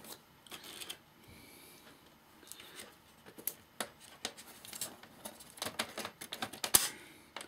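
Irregular small clicks and taps of tools and metal and plastic parts being worked on a Sansui AU-X111 amplifier's front panel during disassembly, sparse at first and coming thicker and faster in the last few seconds.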